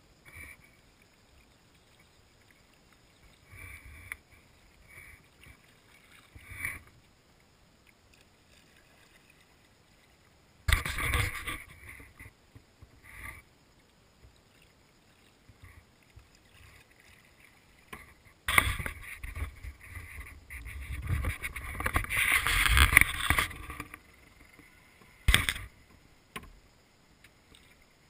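Rowing a small boat: oar strokes splashing and swishing in the water. A few soft strokes come in the first seven seconds, then louder splashing about eleven seconds in and a long loud stretch from about 18 to 24 seconds.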